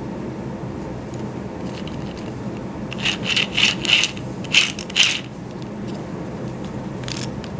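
Freshly assembled 3D-printed plastic gearbox of an RC tank, driven by a 2205 brushless motor on its first test run, its gears not yet lubricated. A steady low hum runs throughout, with a series of loud scraping, rattling bursts from about three to five seconds in.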